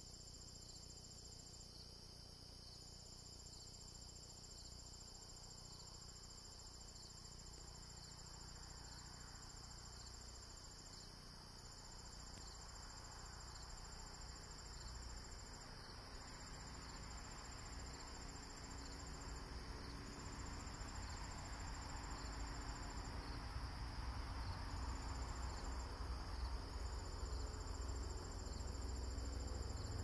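Crickets and other insects calling at dusk: a steady high trill, with a second, higher trill coming in stretches of a few seconds broken by short gaps. A low rumble grows steadily louder through the second half.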